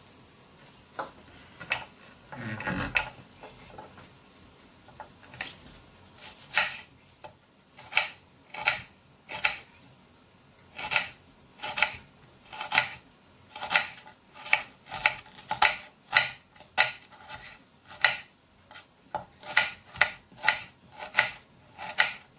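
Knife slicing an onion on a wooden cutting board: a run of sharp knocks, one or two a second, each time the blade goes through and hits the board. A brief handling noise about two seconds in, before the cutting starts.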